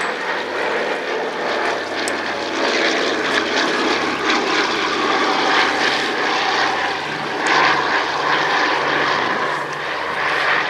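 Consolidated PBY-5A Catalina flying boat in flight, its two Pratt & Whitney R-1830 Twin Wasp radial engines and propellers running steadily, getting a little louder about two-thirds of the way through.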